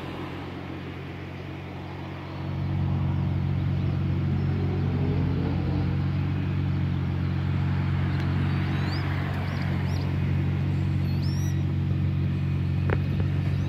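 Nissan GT-R R35's twin-turbo V6 with an Akrapovič exhaust idling with a steady low hum, which gets louder about two seconds in and then holds.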